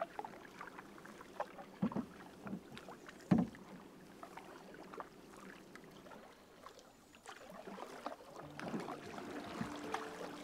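Canoe being paddled: a wooden paddle dipping and pulling through calm water, with a few soft knocks against the canoe, the loudest about three and a half seconds in.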